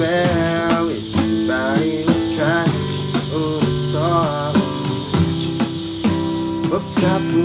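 Music: an acoustic guitar strumming the intro of a song.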